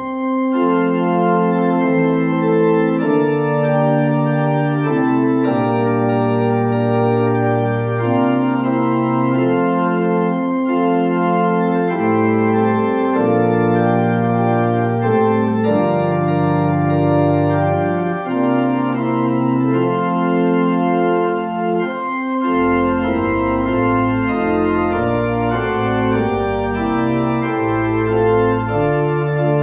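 Organ playing a prelude of slow, sustained chords, changing every second or two; deeper bass notes come in about 22 seconds in.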